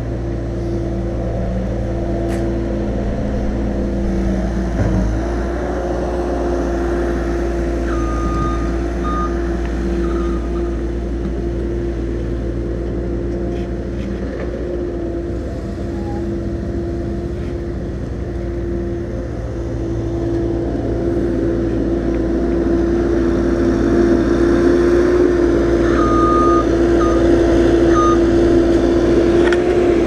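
Pickup truck engine idling steadily close by, growing louder in the last third, with a few short high beeps twice.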